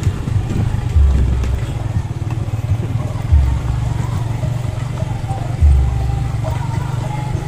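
Motorcycle running along a rough stone-paved track, with a steady low engine and road rumble. Three heavy low thumps stand out, about two seconds apart.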